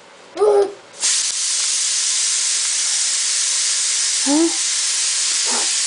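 A steady, loud hiss that starts abruptly about a second in and holds even throughout, with a young child's brief vocal sounds before and over it.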